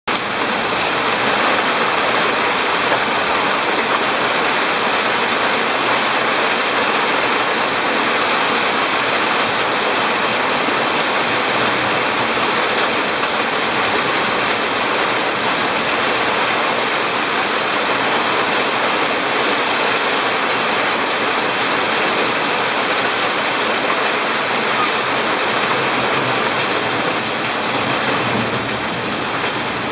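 Heavy rain pouring steadily onto pavement, lawn and palm leaves: a dense, even hiss that eases slightly near the end.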